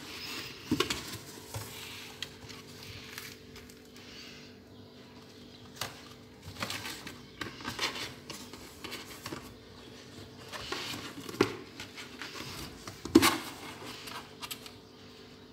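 Rustling and scraping in a cardboard box holding two cats on a cloth, with scattered light knocks and one sharper knock near the end.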